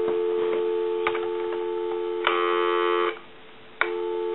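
Telephone dial tone, a steady two-tone hum, heard through a Harris TS22 lineman's buttset on a live phone line. About two seconds in, a short buzzy burst of tones sounds over it. The dial tone then cuts out for under a second and comes back with a click, with a few other line clicks along the way.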